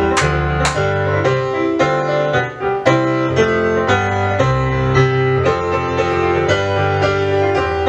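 Recorded instrumental music led by piano, a steady run of struck notes and chords, playing as movement music for a dance class.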